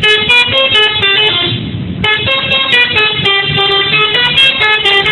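Telolet horn of a Garuda Mas bus playing a fast tune of stepped horn notes that change several times a second. There is a brief break about two seconds in, then the melody starts again.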